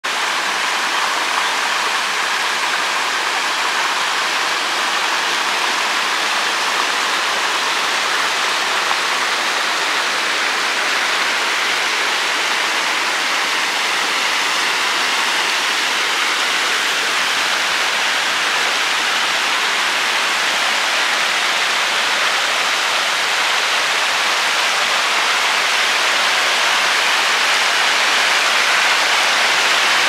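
River rapids: fast water rushing and splashing over granite rocks and small falls, a steady hiss that grows slightly louder near the end.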